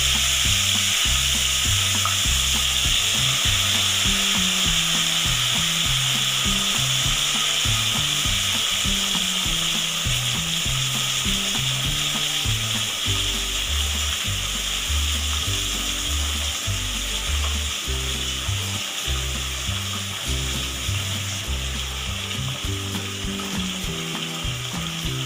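Soaked gobindobhog rice frying in hot mustard oil in a kadai: a strong, steady sizzle that eases a little toward the end.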